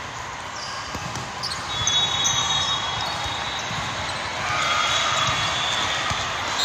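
Echoing din of volleyball play on many courts in a large hall: balls being hit and bouncing, over a murmur of voices.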